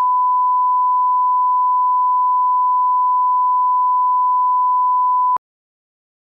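Steady reference tone on a video leader: one unbroken pure beep at a single pitch, which cuts off suddenly with a faint click about five seconds in.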